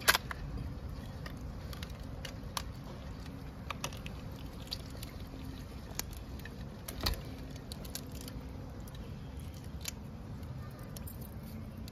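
Hands cleaning an opened crab over a basin of water: scattered small clicks of shell and light wet squelches. A louder click comes right at the start and another about seven seconds in.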